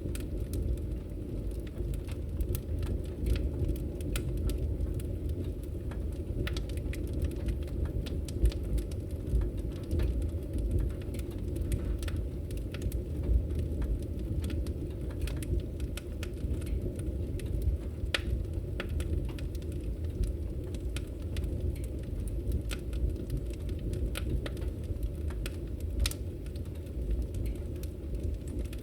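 Fire burning in a fireplace: a low steady rumble of flames with frequent, irregular sharp crackles and pops.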